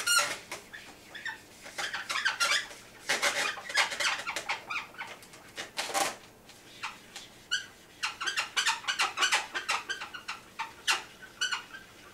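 Latex twisting balloons squeaking as a Sharpie marker is drawn across the balloon and the hands grip the twisted balloons: short, sharp squeaks coming in irregular clusters.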